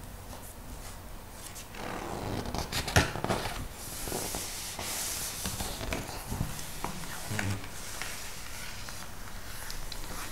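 Hands handling a glossy magazine: paper rustling as the cover is opened and a page turned over, with a sharp crackle about three seconds in, then fingers rubbing and sliding over the glossy pages.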